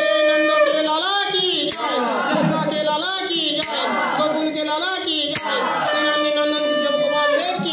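A group singing a Krishna bhajan, the voices gliding over a steady held tone, with a sharp strike about every two seconds.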